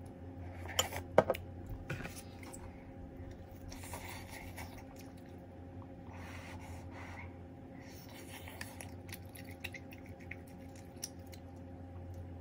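Close-up eating of ramen noodles and dumplings: a few sharp utensil clicks about a second in, then short bouts of slurping and chewing, over a steady low hum.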